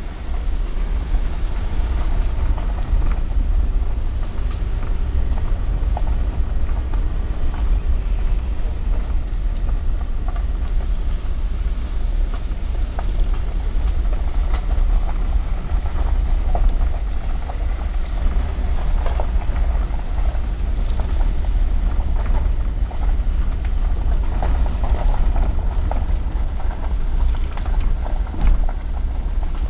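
Pickup truck driving: a steady low rumble of engine and road noise, with scattered small rattles and knocks.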